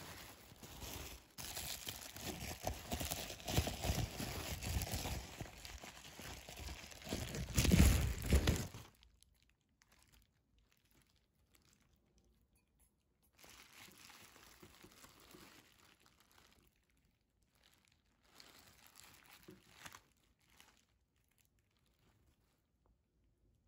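Bubble wrap and tissue paper crinkling and rustling as a ceramic bowl is unwrapped, loudest about eight seconds in. It stops after about nine seconds, and two brief, faint rustles follow later.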